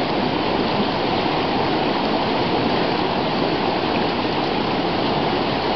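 A strong mountain river rushing through white-water rapids: a steady, unbroken wash of moving water.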